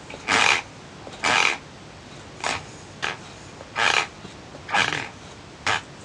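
Teeth grinding (bruxism): a series of short rasping grinds, about seven in six seconds, coming at an uneven pace.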